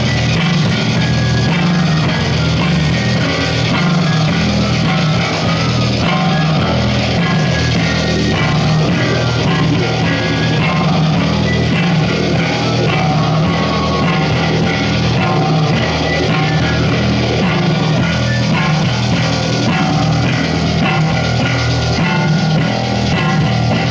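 A rock band playing live and loud, with electric guitar, bass guitar and drums.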